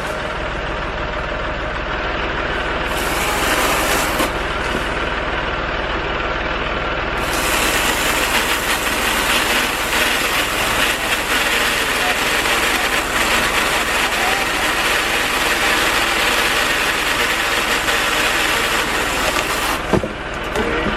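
An engine running steadily, with one short knock about twenty seconds in.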